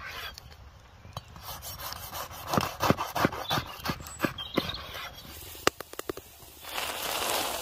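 Knife sawing through a loaf of bread on a wooden board, one rasping stroke after another. Near the end there are a few light clicks, and then a steady sizzle as bread slices meet an oiled hot griddle.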